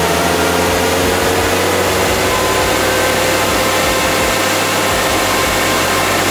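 Audi B9 S5's turbocharged 3.0-litre V6, on a Stage 2+ tune with an aftermarket downpipe, running at a steady speed on a chassis dyno, over a steady rushing noise.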